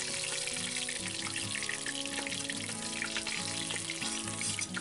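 Pangas fish frying in hot mustard oil in a kadhai: a steady sizzle.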